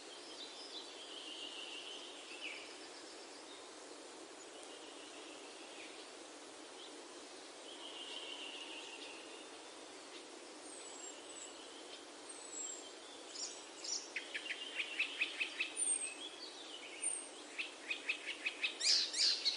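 Birds chirping over a steady hiss: short whistled calls here and there, then rapid trills in the last few seconds.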